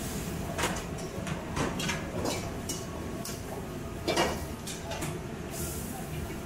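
Commercial kitchen sounds: metal pans and utensils clinking and knocking at the wok station, with the loudest knock about four seconds in, over a steady low background noise.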